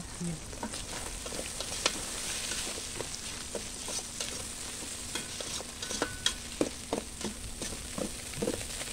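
Spaghetti sauce sizzling in a stainless steel pot with a steady hiss, while a metal ladle stirs it and clinks and scrapes against the pot at irregular moments.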